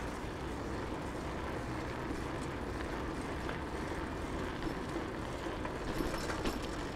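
Steady outdoor background noise, even and without speech, with a few faint clicks about six seconds in.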